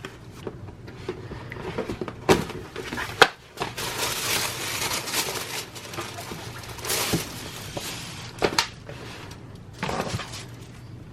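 Packaging being handled and opened: rustling that swells and fades, with several sharp clicks and snaps.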